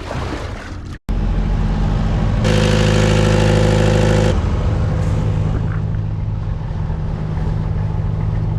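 Boat engine running steadily, a low droning hum. For about two seconds in the middle it is louder, with a rushing noise over it.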